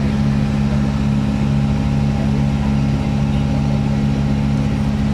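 Boat engine running at a steady speed, heard from on board the moving boat, with a constant low hum.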